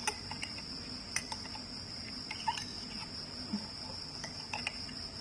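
Steady high-pitched chirring of insects, with scattered light clicks and taps.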